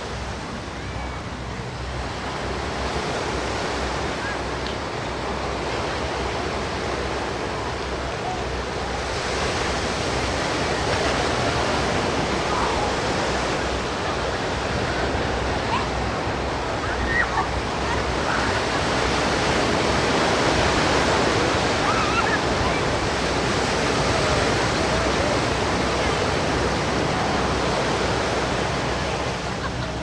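Ocean surf breaking and washing up on a sand beach: a continuous rushing wash that swells louder twice, about ten and twenty seconds in.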